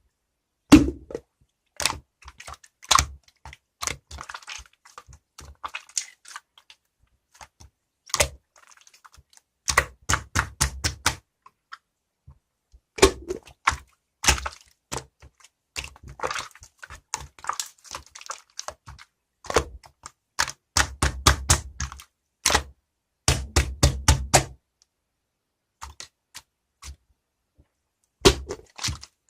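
Slime being squeezed, poked and stretched by hand, giving many sharp clicks and pops in irregular clusters, with a few short pauses.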